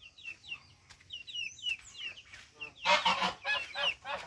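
Backyard poultry calling: short, high, falling peeps repeat throughout, and about three seconds in comes a louder run of rapid calls from the larger fowl.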